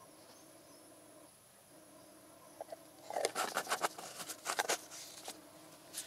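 Plastic screw cap being twisted onto the threaded neck of a plastic oil bottle by gloved hands: a quick run of clicking and scraping strokes starting about three seconds in and lasting nearly two seconds, followed by a few single clicks.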